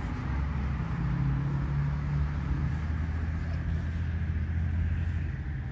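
Road traffic: a motor vehicle's engine hum with tyre noise, a steady low drone lasting several seconds.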